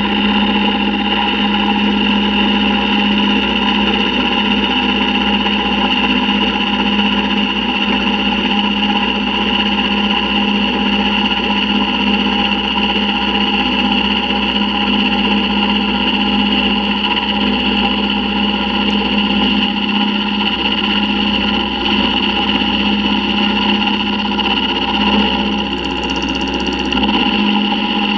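Milling machine cutting the inside of a thick metal T6 exhaust flange with an end mill: a loud, steady hum with a high whine, which dips briefly near the end.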